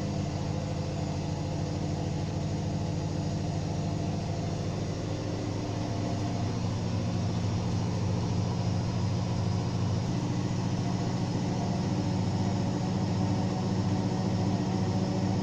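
Washing machine running with a steady motor hum as the drum turns. The tone shifts slightly about halfway through and grows a little louder toward the end.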